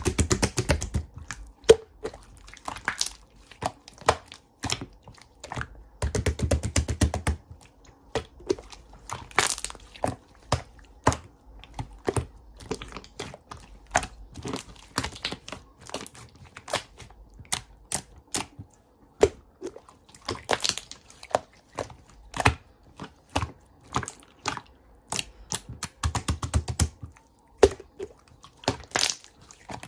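Rapid crackling and clicking, with a few heavier, lower squishing presses at the start, about six seconds in and near the end.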